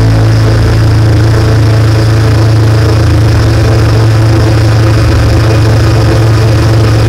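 Live electronic music from synthesizers: a loud, steady low drone held on one pitch, with steady higher overtones above it.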